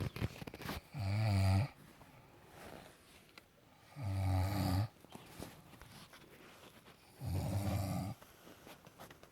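Snoring: three low snores about three seconds apart, each lasting under a second. A few faint clicks come near the start.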